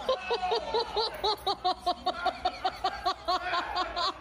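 A person laughing hard in a rapid, even run of high-pitched "ha-ha" bursts.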